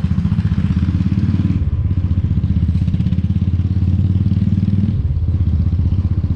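Motorcycle engine running steadily at low road speed with a low, rapid pulsing note; the note drops briefly about five seconds in.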